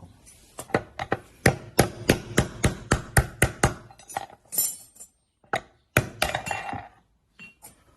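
Hammer blows on a steel socket, driving out the seized outer race of a front-load washing machine's drum bearing: a fast run of sharp metallic strikes, about four a second, then a few scattered knocks and clinks in the second half.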